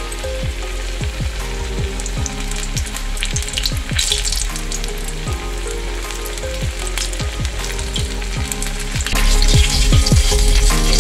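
Batter-coated fish fillet frying in hot oil in a pan: a steady sizzling hiss with frequent small pops and crackles.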